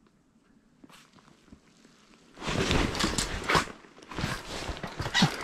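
Sudden loud rustling and scuffing of clothing and gear against the camera, starting about two and a half seconds in, with short scrapes and knocks: an angler moving fast to set the hook and fight a fish through the ice.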